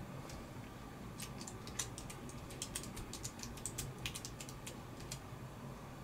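Computer keyboard keys clicking in irregular little runs of taps, over a low steady hum.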